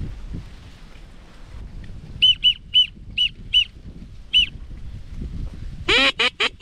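Duck call blown for teal: six short, high peeps spread over about two seconds, then near the end a louder, quick run of about five quacking notes. The calling sounds more like a seagull than a duck.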